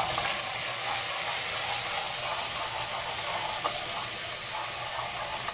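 Water poured onto onions browned in hot oil, sizzling with a steady hiss as it boils off, while a metal spoon stirs in the pot with a few light clicks.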